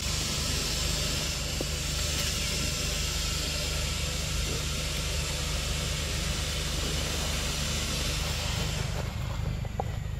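Steady background noise: a low rumble under a loud high hiss, which fades away about nine seconds in.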